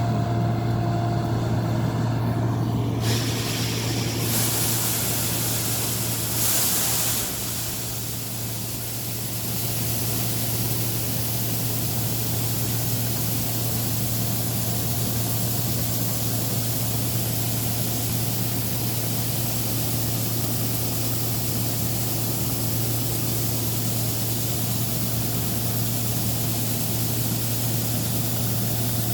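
Combine harvester running steadily while harvesting soybeans: a constant low engine hum, with a louder rushing noise joining about three seconds in and holding on.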